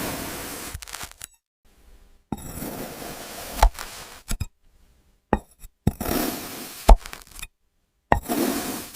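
A blade slicing through sand: a gritty, crunching hiss that starts sharply and fades over about a second, repeated four times, with sharp knocks between cuts.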